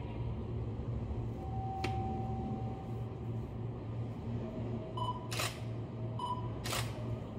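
A stopped JR 205 series electric train hums steadily and low. Over that hum a camera's focus-confirm beep and shutter click are heard twice, a little over a second apart, in the second half, with a single sharp click about two seconds in.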